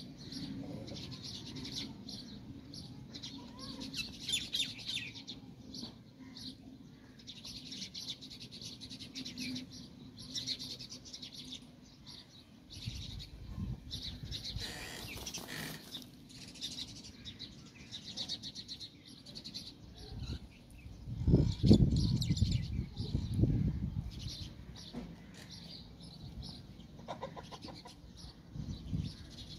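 Small birds chirping throughout as a rooster dust-bathes in dry soil, scratching and shaking its feathers in the dirt, with a loud flurry of rustling about two-thirds of the way through.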